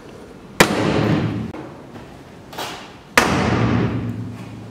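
Two short MIG welding bursts, tack welds putting a steel seat bracket in place, each starting abruptly with a crackle and lasting about a second.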